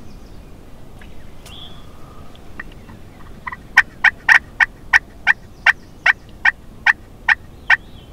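A loud series of turkey yelps, short sharp evenly spaced notes at about two and a half a second, starting about halfway through and still going at the end.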